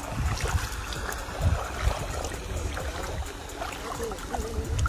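Footsteps wading through shallow water in rubber clogs, with irregular splashing and sloshing at each step.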